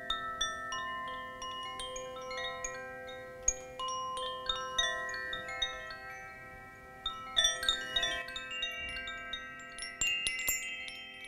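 Koshi bamboo wind chime swung by hand, the clapper inside striking its tuned metal rods in an irregular, overlapping run of bell-like notes that ring on long after each strike, with a louder flurry of strikes about two thirds of the way in. Near the end, higher notes join in from a small metal-tube wind chime.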